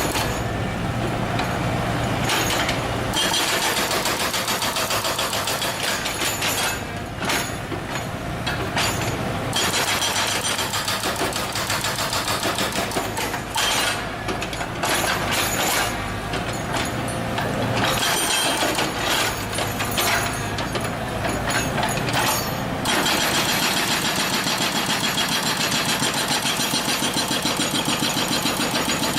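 Hydraulic breaker on an excavator hammering rapidly as it breaks up a road surface, over the steady running of the excavator's diesel engine; the hammering stops briefly several times and resumes.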